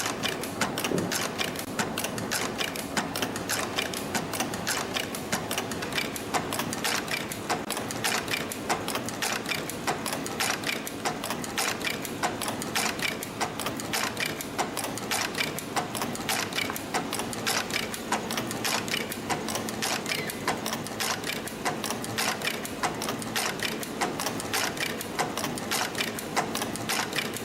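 EF-210 CNC extension spring coiling machine running, coiling fine 0.12 mm wire and forming the hooks of extension springs: a steady, fast, even clatter of mechanical clicks.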